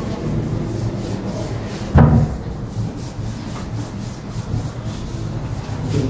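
A whiteboard being wiped clean, a steady dry rubbing across its surface, with one loud knock against the board about two seconds in.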